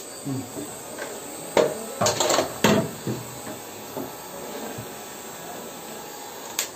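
Sharp clicks and knocks of hands working on the orange lever handle and fittings of a PVC butterfly valve, clustered about one and a half to three seconds in, over a steady hiss.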